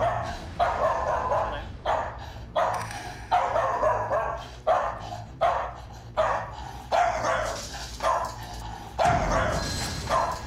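A small dog barking repeatedly, about one sharp bark every three-quarters of a second, as it lunges on its leash in a standoff with a man blocking it: aggressive barking of the kind the training aims to reduce.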